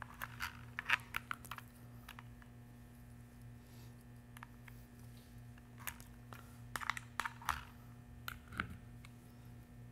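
Light clicks and taps of banana-plug test leads being handled and pushed into the jacks of a plastic circuit trainer board, in scattered small groups near the start and again about two-thirds through, over a faint steady low hum.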